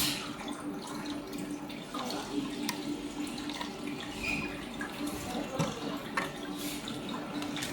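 Water running, with a steady low hum and scattered small clicks.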